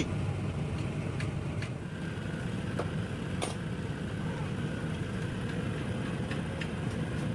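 A steady low mechanical rumble, like an engine or motor running, with scattered light clicks and taps over it.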